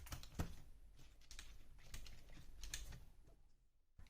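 Scattered small clicks and taps of hand tools and small plastic and metal parts being handled while the RC car's motor is being removed.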